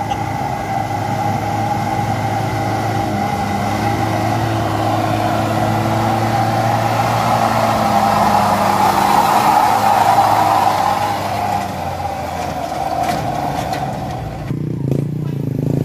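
Diesel engine of a Mitsubishi light truck running under load as it crawls through deep mud. It grows louder about 8 to 11 seconds in as the truck passes close by. The sound changes abruptly about a second before the end.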